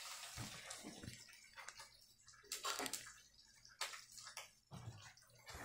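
Faint, scattered rustling and small knocks from objects being handled by hand, in short irregular bursts.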